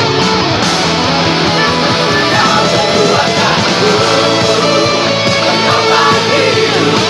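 Lead guitar playing the melody of a worship song over a full rock band backing track, with held notes bent up and down.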